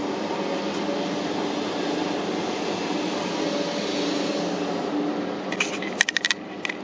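Hitachi 850LC excavator's diesel engine and hydraulics running steadily under load, heard from inside the cab. A quick burst of sharp clacks and rattles comes near the end.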